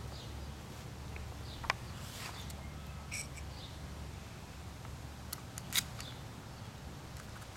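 A few scattered sharp clicks of an airsoft gun being handled and reloaded with a fresh magazine, over a steady low hum.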